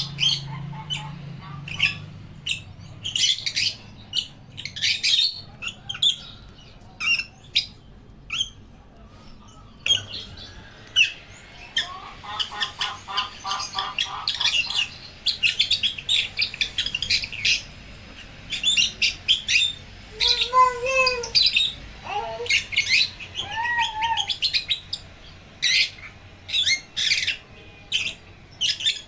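Pet cockatiel and African lovebirds chirping: a steady stream of short, high chirps, with a few lower, warbling calls about halfway through and again later on.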